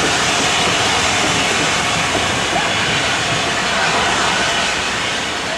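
Steam-hauled passenger train's coaches rolling past a platform: a steady rushing noise of wheels on rail and steam, easing slightly near the end.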